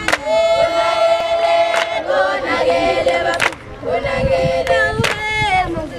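A group of women and girls singing a traditional Zulu dance song together in long, held notes, with a sharp strike cutting through about every second and a half.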